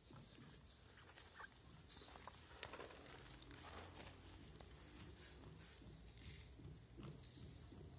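Faint, irregular crunching and clicking of kittens chewing dry kibble, with one sharper click a little over two and a half seconds in.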